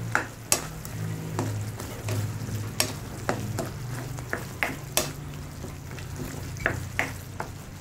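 A spatula stirring diced eggplant in thick tomato sauce in a metal pan, with irregular scrapes and taps against the pan as the dish simmers, over a low steady hum.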